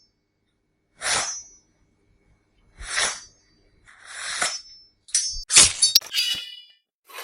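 Metal blade sound effects: a series of short scraping blade draws, each with a brief high metallic ring, about a second or two apart, then a quick cluster of sharper metal clashes with ringing a little after five seconds in.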